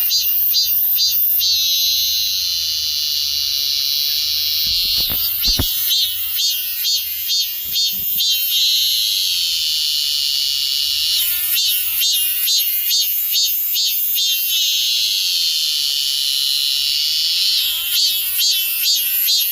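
Cicada singing: stretches of a steady high-pitched buzz alternate with rhythmic pulsed phrases of about three pulses a second, the pattern repeating several times.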